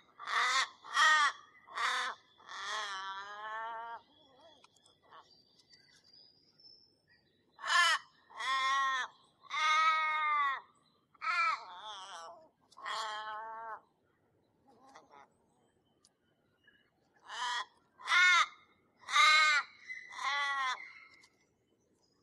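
Crows calling: three runs of harsh, drawn-out caws, about five or six calls in each run, with quiet gaps of several seconds between the runs.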